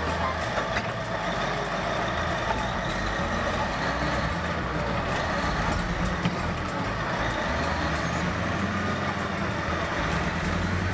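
Crawler bulldozer working, its diesel engine running steadily, with scattered small clicks and clanks.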